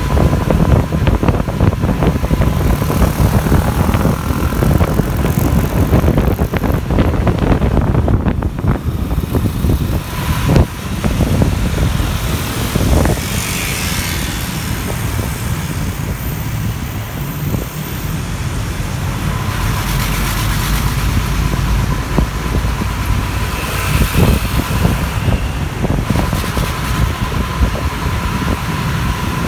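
City bus in motion, heard from inside: the engine running under a steady rumble of road and wind noise, with a faint steady whine and a few knocks and rattles.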